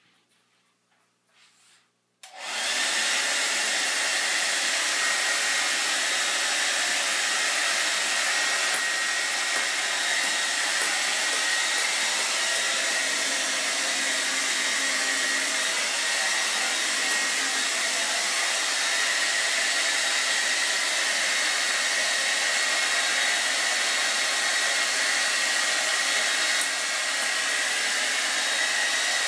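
Hair dryer switched on about two seconds in and running steadily: a rush of blown air with a steady high whine in it.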